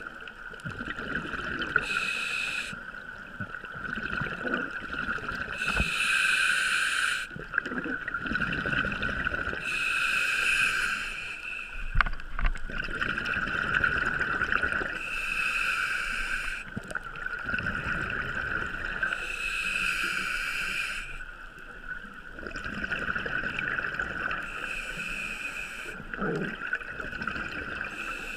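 Scuba diver breathing through a regulator underwater, muffled through a waterproof camera housing: a hiss on each inhale alternating with a rumbling burble of exhaled bubbles, about one breath every four to five seconds, over a steady high whine.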